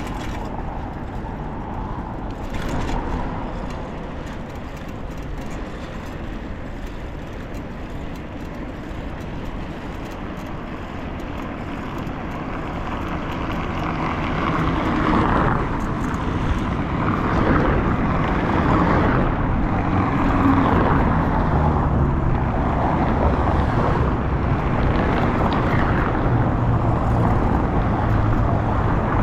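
Steady outdoor street noise, mostly road traffic, growing louder about halfway through.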